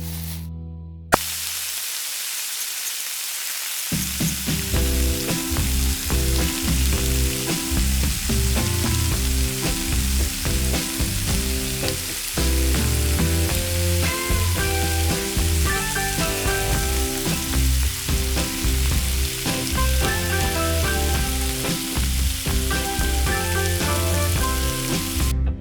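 Food frying, a steady sizzle that starts with a click about a second in. Background music comes in about four seconds in.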